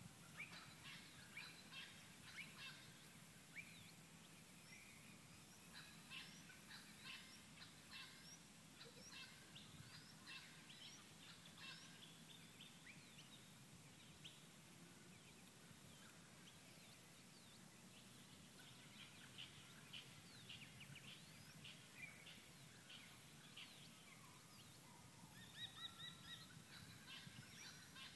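Faint outdoor birdsong: many short chirps and whistles throughout, with a longer, steadier call near the end.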